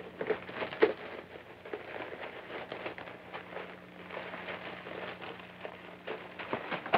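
Irregular crackling and scattered pops over a steady low hum, the noisy soundtrack of an old film print.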